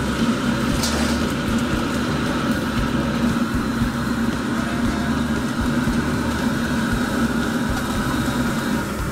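Steady roar of a commercial wok burner's gas flame under a wok of water at a rolling boil, with a constant low hum.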